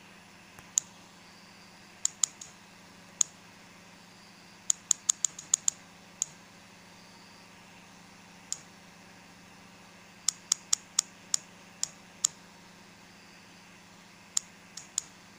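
About two dozen sharp clicks of on-screen buttons being pressed to nudge an image a pixel at a time. Some are single, and some come in quick runs of four to six, over a faint steady hum.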